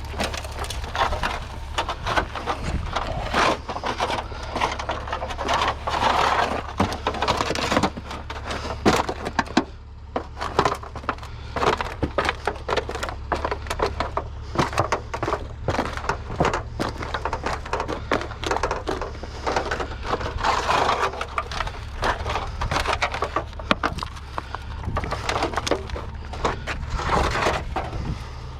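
Dense, irregular clattering, knocking and crunching of discarded items being handled and rummaged through, over a steady low hum.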